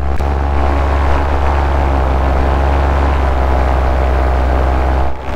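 Paramotor (powered paraglider) engine and propeller running steadily, heard close from the pilot's position with a rush of air, the level dipping briefly near the end.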